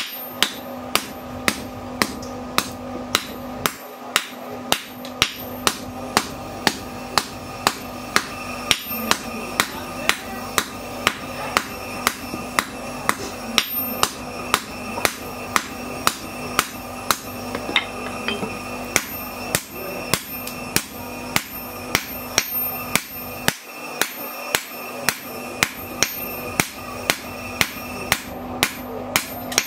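Hand hammer forging a red-hot bar of bearing steel on an anvil: evenly spaced blows, about two a second, with a couple of brief pauses, over a steady hum.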